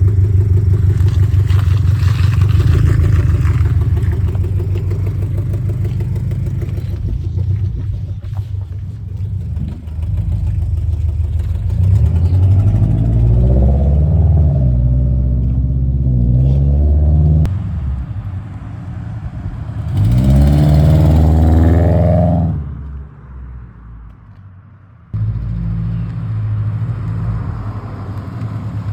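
Subaru flat-four engine fitted with Tomei unequal-length headers, idling and blipped several times partway through, with an exhaust leak at the new headers.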